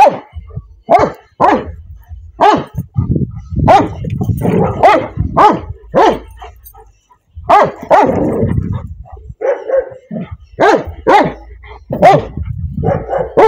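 Two dogs play-fighting, barking many times in short, sharp barks, with a couple of longer, lower growling stretches in the middle.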